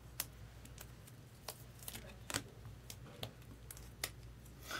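Faint, irregular clicks and rustles of trading cards being handled and slipped into plastic card cases.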